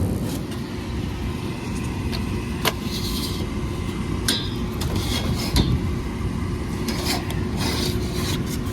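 Steady low mechanical hum of running machinery, with scattered clicks, knocks and rustling as parts are handled. The hum stops just after the end.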